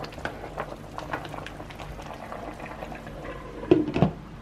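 A pot of soup boiling, bubbling and popping as it is stirred with a utensil. Near the end a glass pot lid is set on the pot with two sharp clanks.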